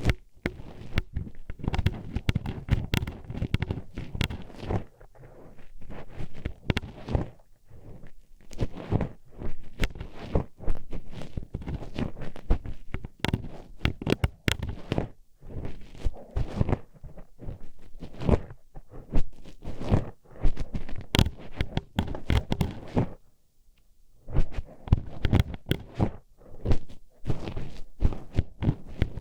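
Metal hairpins pushed into and worked around the ears of an ASMR microphone: close, irregular clicking and clacking with scraping and low rubbing, pausing briefly about three quarters of the way through.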